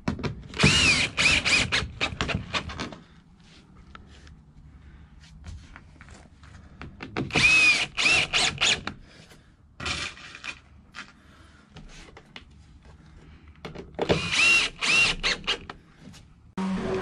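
Power drill run in three spells of short trigger bursts, its motor whine rising and falling in pitch with each squeeze, while the new plywood floor of the van is being fixed down. Music starts just before the end.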